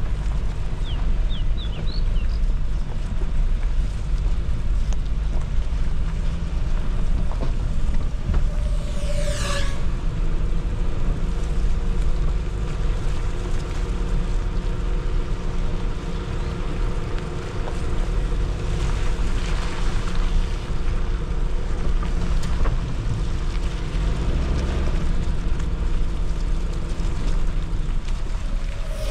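Small 4x4 driving off-road: a steady low rumble of engine and wind noise on the microphone.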